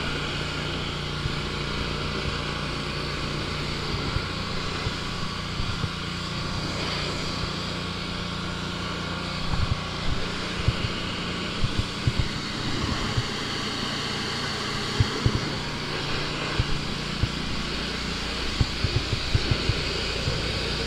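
Troy-Bilt XP gas pressure washer engine running steadily under load, with the hiss of the water jet over it. From about ten seconds in, irregular sharp low knocks cut in over the engine.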